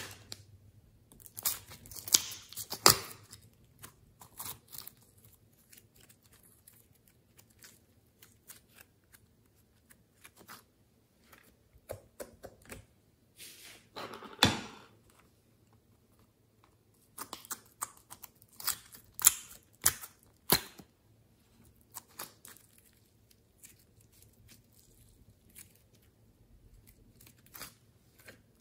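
Sticky glossy slime being pulled out of plastic containers and dropped into a glass dish. Scattered bursts of crackling, peeling and clicking come in a few clusters, with quiet gaps between them.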